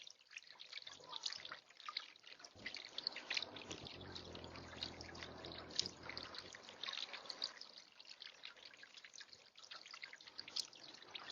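Faint water dripping and trickling in a bird bath: irregular small drops throughout, with a low hum from about two and a half to seven and a half seconds in.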